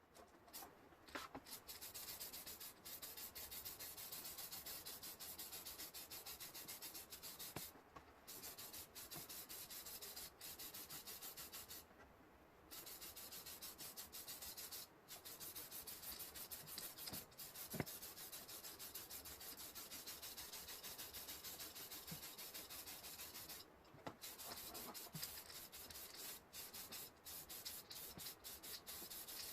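Aerosol can of Tamiya polycarbonate spray paint spraying onto a Lexan RC body: a faint, steady hiss broken by a few short pauses between passes, with one sharp tick about eighteen seconds in.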